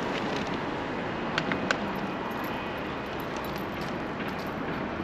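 Steady city street noise with traffic going by, and three short clicks in quick succession about a second and a half in.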